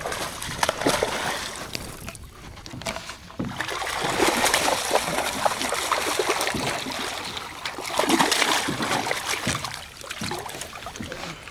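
A hooked bass thrashing and splashing at the water's surface, the water churning in repeated splashes for several seconds, heaviest in the middle and easing near the end.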